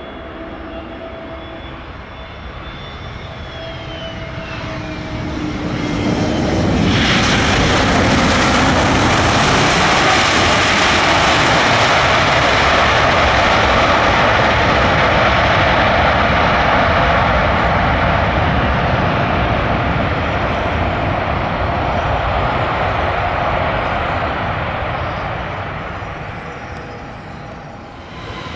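Airbus A320neo's CFM LEAP-1A turbofans whining on landing, the whine falling in pitch as the airliner passes. About six seconds in, a loud rushing jet roar builds up sharply; it holds for some ten seconds and then slowly fades.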